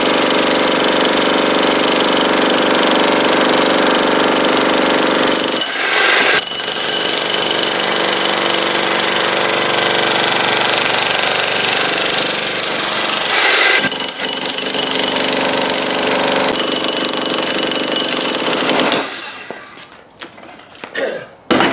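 Heavy jackhammer breaking up a concrete walkway, hammering steadily with two brief letups. It stops about nineteen seconds in, and a short knock follows near the end.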